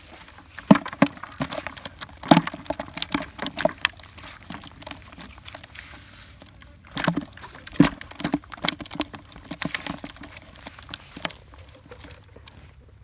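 Eels and fish shaken with water out of a bamboo tube trap into a plastic bucket, splashing and slapping against the bucket in an irregular run of wet taps and knocks. The loudest knocks come about a second in, after two seconds and near eight seconds.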